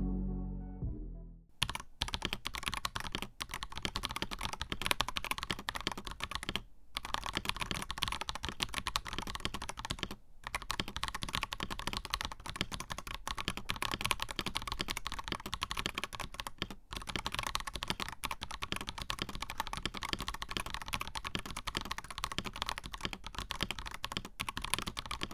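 Steady typing on an Akko 5075B Plus mechanical keyboard with Akko CS Wine White switches and silicone plate foam, a deep, muted run of key clacks that starts about a second and a half in as music fades out. The typing stops for a moment three times.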